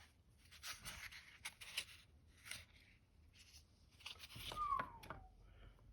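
Soft rustling and scraping of the pen's packaging being handled, in a run of short bursts, with a brief falling squeak about a second before the end.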